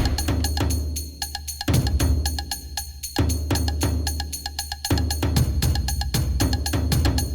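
Drum music: fast, evenly spaced sharp hits with a woody click over a deep low bass that returns in phrases about every second and a half.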